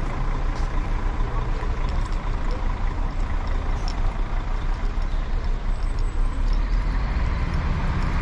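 Steady low rumble of a motor vehicle running, with a faint steady hum on top.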